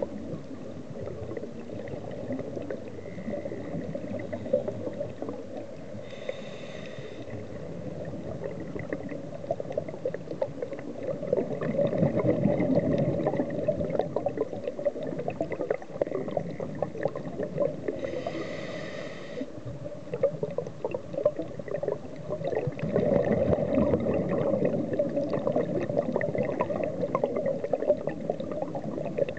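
Underwater ambience: a muffled, rumbling water noise with steady fine crackling, swelling louder twice for a few seconds. Two brief hissing bursts come about twelve seconds apart.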